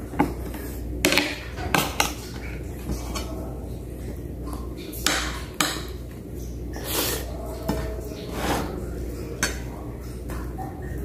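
A metal fork clinking and scraping against ceramic plates in a series of sharp, irregular clinks, with close-up eating noises between them, over a low steady hum.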